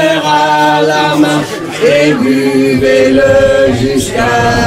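A woman singing into a handheld microphone in long held notes.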